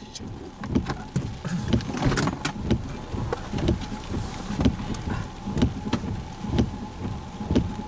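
Inside a car's cabin: low thumps about once a second with scattered sharp clicks, and a faint steady tone coming in about five seconds in.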